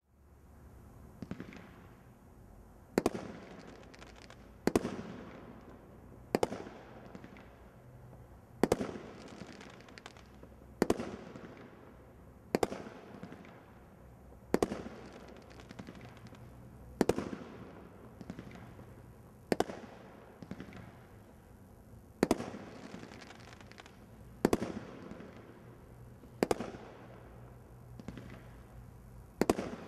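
Brothers Pyrotechnics 'Exploding Cherries' 16-shot combination roman candle firework cake firing its shots one after another. There is a sharp bang about every two seconds, each trailing off in echo, with quieter pops in between.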